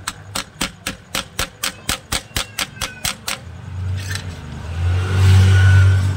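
Small hammer tapping on the metal sole plate of a Bajaj electric press iron, about four quick taps a second, punching the new heating element in tight so it sits without a gap. The tapping stops about three and a half seconds in, and a low engine drone then rises and is the loudest sound near the end.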